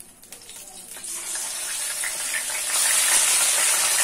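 Marinated chicken pieces dropped into hot oil in a kadai, sizzling. The sizzle starts about a second in and grows louder near the end as more chicken goes in.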